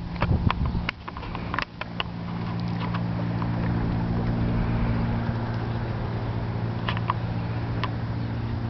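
An engine running steadily at a constant speed, a low even hum, with a few short sharp clicks scattered over it.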